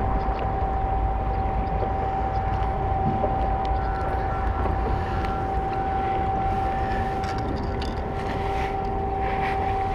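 Steady low rumble of city traffic with a constant even hum running under it.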